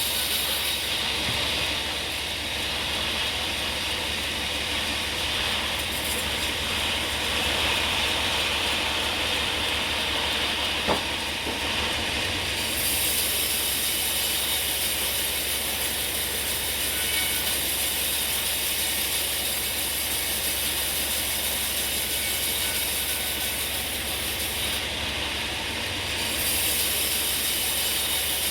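Sawmill saw running steadily through a log of hard bongkeng wood, a continuous mechanical whine with a fast low rattle. A single sharp knock comes about eleven seconds in.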